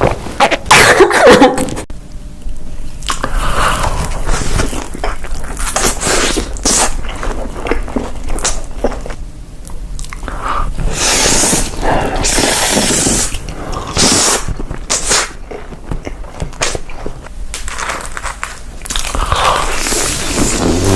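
Close-miked eating: a person biting, chewing and crunching food, with irregular wet mouth sounds and crisp crunches.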